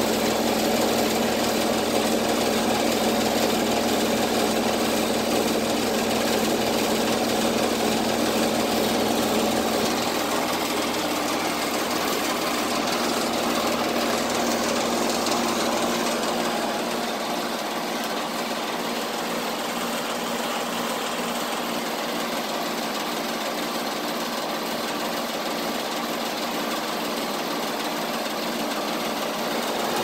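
ICP Max Performance 10 heat pump outdoor unit running, its compressor and condenser fan giving a steady mechanical hum. The deep part of the hum weakens about halfway through.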